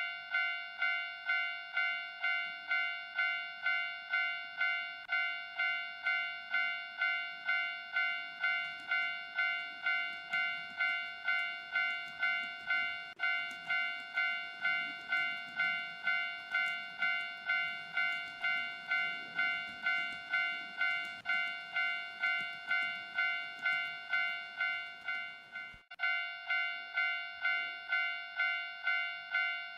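Japanese railway level-crossing warning bell clanging steadily, about two strikes a second, breaking off for a moment near the end and starting again. A faint low rumble runs underneath in the middle part.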